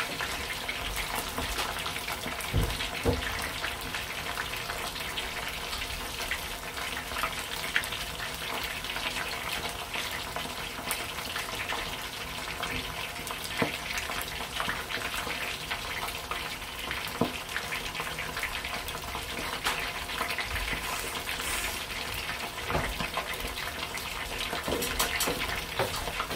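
Batter-coated squid deep-frying in hot oil in a saucepan: a steady sizzle and bubbling with scattered pops and crackles.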